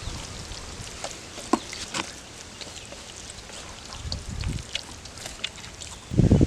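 Outdoor background with scattered sharp clicks and ticks, then loud rustling and handling sounds starting near the end.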